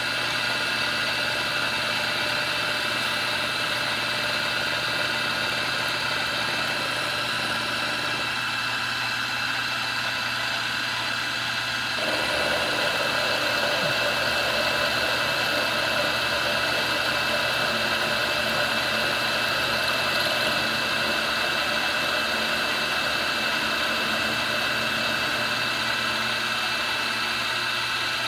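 Milling machine running, its end mill taking a cutting pass with a steady mechanical whine. About twelve seconds in, the cutting sound gets louder and brighter and holds there.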